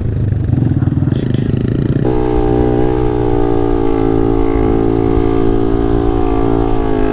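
Small 125 cc single-cylinder motorcycle engine running under way, its note stepping up to a higher, steady pitch about two seconds in and holding there.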